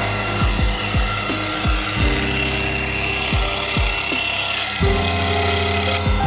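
Table saw ripping a wide wooden board, a steady cutting noise that eases off about three quarters of the way through, under background music with a steady beat.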